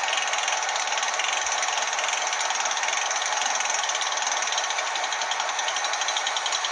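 The ESU LokSound 5 decoder in an H0 model of the ÖBB 2050 plays the recorded idle of the locomotive's two-stroke diesel engine. It comes through the model's small speaker, thin and without bass, as a steady sound with a fast, even knock.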